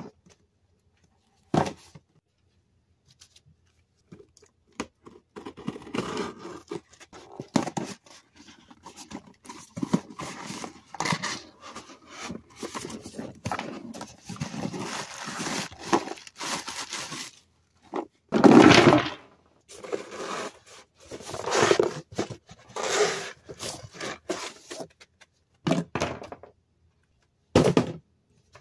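Cardboard box being opened by hand: packing tape tearing away and a plastic bag crinkling in long rustling stretches, then a few short knocks and clatters as small plastic toy figures land on a wooden floor.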